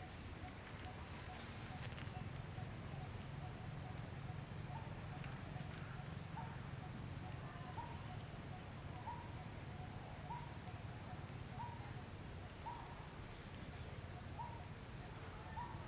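Forest ambience: insects chirping in quick, evenly pulsed high trains, with a short rising call repeating about once a second from about five seconds in, over a low steady rumble.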